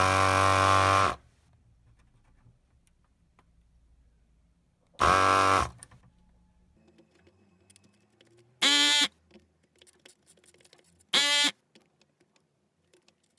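S-993A desoldering gun's built-in vacuum pump buzzing in four short bursts as the trigger is pulled, each one sucking molten solder out of a through-hole joint. The first burst lasts about a second, the last ones are briefer.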